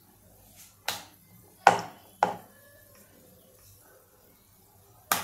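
Wooden rolling pin knocking against a round wooden rolling board (polpat) as a sheet of dough is rolled and turned: four sharp knocks, two of them close together about two seconds in, the first of these the loudest, and one more near the end.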